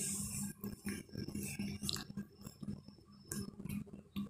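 A spatula stirring and scraping shredded potato around a metal karahi (wok), in rhythmic strokes about three times a second with sharp clicks where it knocks the pan.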